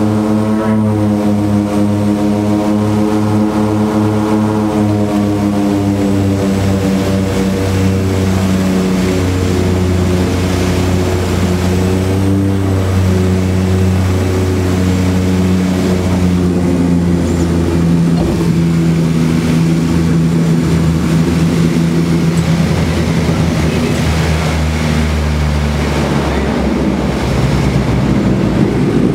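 A de Havilland Twin Otter's two PT6A turboprop engines and propellers droning loudly inside the cabin. The pitch slides down over the first several seconds, then steps lower a few more times as power is brought back.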